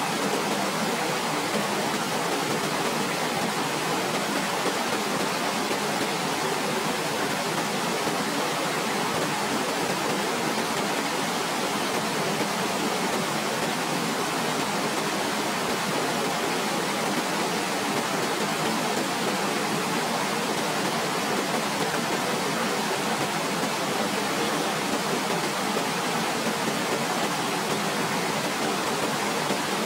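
Waterfall: a steady, even rush of falling water with no breaks or changes.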